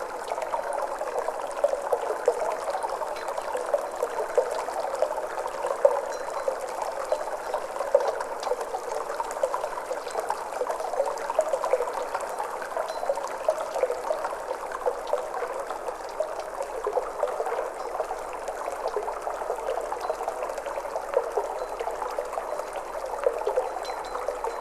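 Flowing water trickling steadily and without a break, like a small stream.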